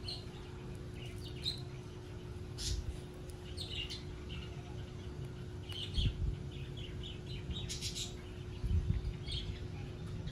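Small birds chirping in short, scattered calls over a low rumble, with a couple of louder low bumps about six and nine seconds in.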